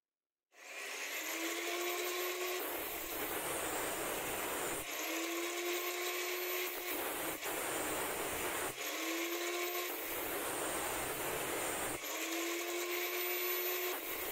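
Angle grinder with a cut-off disc, in a chop-saw stand, starting up about half a second in and cutting through steel threaded rod. The steady whine of the free-spinning disc alternates several times with the noisier sound of the disc biting into the rod.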